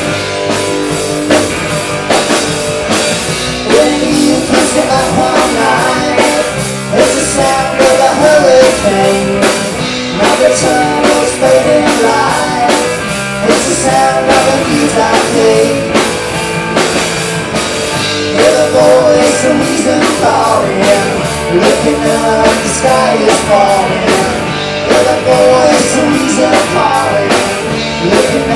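Rock band playing live: electric guitar, bass guitar and drum kit, with a lead vocal that comes in about four seconds in.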